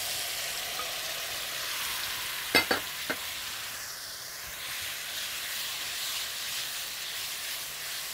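Marinated chicken strips sizzling in hot oil in a frying pan as they are stirred with a spatula, with a steady hiss. Three sharp knocks come about two and a half to three seconds in.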